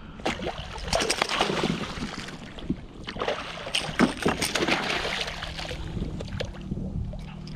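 A hooked snook thrashing and splashing at the surface beside a kayak, in a string of irregular splashes, loudest about a second in and again from about three to five seconds in.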